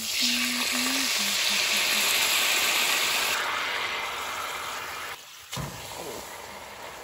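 Salmon sizzling hard in a hot pan as soy sauce and honey are poured on. The loud frying starts suddenly and eases off over several seconds.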